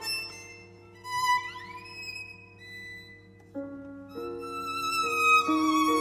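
Violin played with piano accompaniment in a soft classical passage; just over a second in, the violin slides upward in pitch to a high note.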